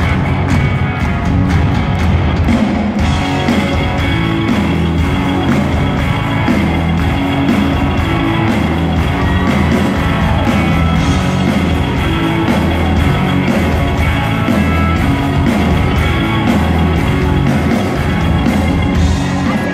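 Live rock band playing on stage, with drums keeping a steady beat under electric guitars, heard through a large venue's PA from within the crowd.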